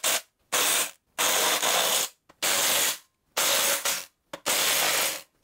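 Cordless impact wrench hammering in a run of short bursts, most under a second, with brief silent gaps between them, as it spins out the 10 mm bolts holding an old blade spindle to a John Deere mower deck.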